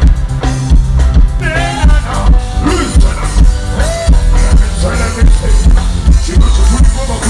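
Loud music with a heavy bass beat and a singing voice.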